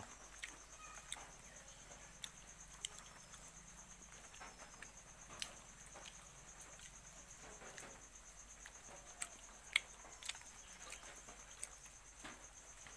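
Insects trilling: a faint, steady, high-pitched chorus, with a few scattered soft clicks.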